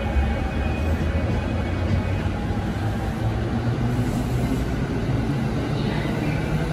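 E217 series electric multiple unit pulling out of the platform: a steady low rumble of wheels and running gear, with a faint motor whine rising in pitch as the train gathers speed.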